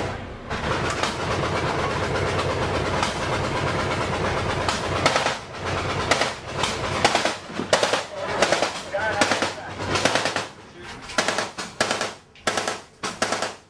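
Bursts of automatic gunfire, rapid cracks in clusters of several shots with short pauses between, starting about four to five seconds in over a steady low rumble. Faint shouted voices come between the bursts.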